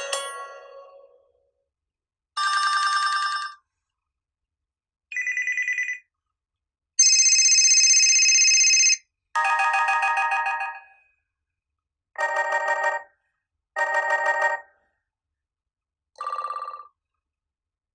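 Built-in ringtones of an HTC Desire C phone played from its speaker one after another: a melody fades out, then a string of short tones follows, each a second or two long with a pause between and each in a different pitch, the loudest a steady two-second tone about seven seconds in.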